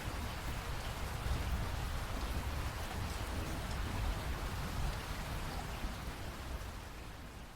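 Steady rain falling, with a deep rumble underneath, fading down near the end.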